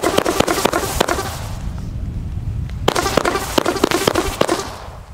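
Röder Rauchkometenfächer Blau, a blue smoke-comet fan battery, firing two volleys of rapid launch pops with crackle: one at the start, the next about three seconds in. Wind rumbles on the microphone underneath.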